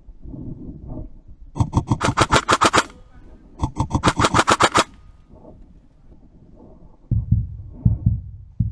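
Airsoft guns firing two quick bursts of automatic fire, a rapid even clatter of about a dozen shots a second, each burst a little over a second long. Near the end come low rumbling knocks.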